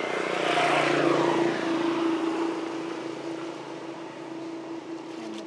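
A steady engine hum that swells about a second in and then slowly fades, as of a motor vehicle or aircraft passing.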